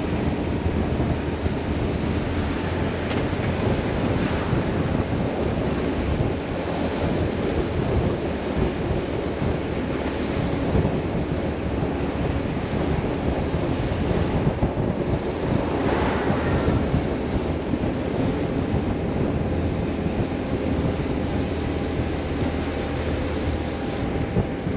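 Wind buffeting the microphone as a BMW R 1150 RS motorcycle is ridden, with its boxer twin engine running steadily underneath the rush.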